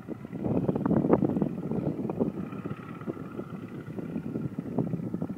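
Wind buffeting the microphone in uneven gusts, with the faint, steady drone of a distant propeller biplane's engine coming through in the middle.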